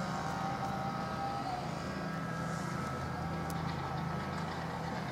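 Steady hum of distant engines, with a higher held tone that shifts a little in pitch now and then.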